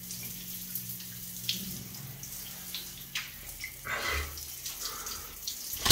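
Shower running, its spray of water hissing down onto a person and the tiled stall, with a low steady hum underneath.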